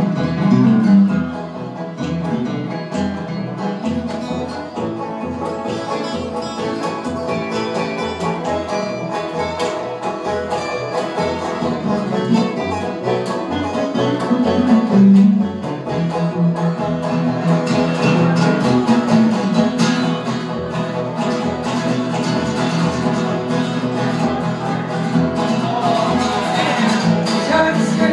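Live acoustic band playing an instrumental break with a bluegrass feel: banjo and acoustic guitar picking over steady upright bass notes.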